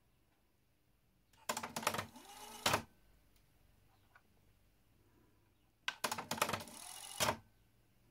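Technics RS-AZ6 cassette deck transport clicking into play, its motor whirring briefly with a rising pitch, then clicking off again, twice. It is the deck's fault of starting to play and then stopping.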